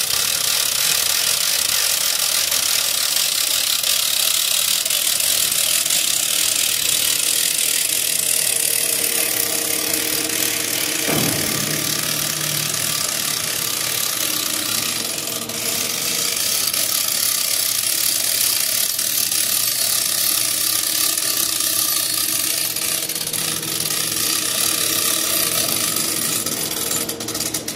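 Guardian retractable-cable horizontal lifeline being hand-cranked: its ratchet clicks steadily and fast as the steel wire is wound in and tensioned.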